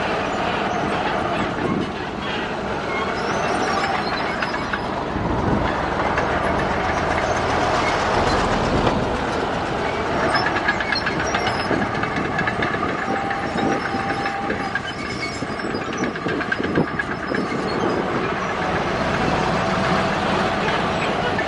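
Heavy earthmoving machinery working: diesel engines running with a continuous metallic clatter and scattered clanks, typical of a crawler bulldozer's steel tracks and blade pushing fill.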